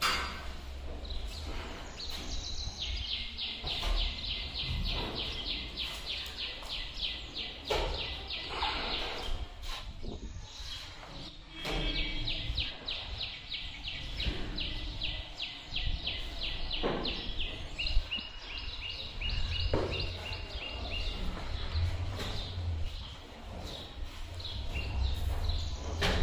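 Rapid high-pitched chirping, a fast steady series of short notes that keeps going for many seconds, breaks off about a third of the way in, then resumes and fades out a few seconds before the end. Occasional knocks and thumps sound underneath.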